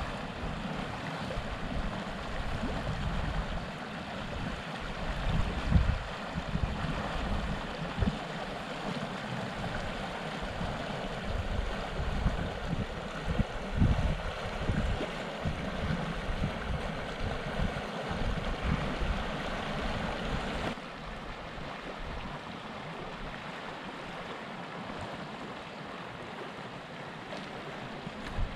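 The Rio Costilla, a small mountain trout stream, rushing steadily over a riffle, with wind gusting on the microphone as a low rumble. About two-thirds of the way in the rush drops suddenly to a softer, duller level.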